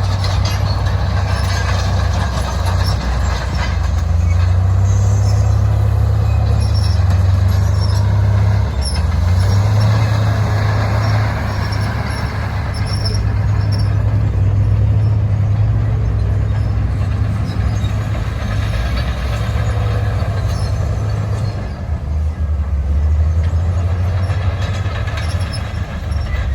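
Heavy diesel earthmoving machinery running steadily, a deep engine drone whose note shifts up and down a little, with faint clinks over it.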